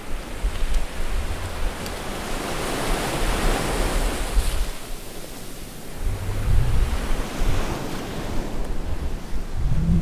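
Ocean waves washing in, one swell building to a peak about four seconds in and then ebbing, with low gusts of wind buffeting the microphone.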